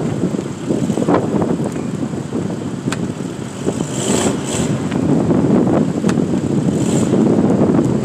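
Blizzard wind buffeting the microphone in loud, uneven gusts, with a few sharp clicks.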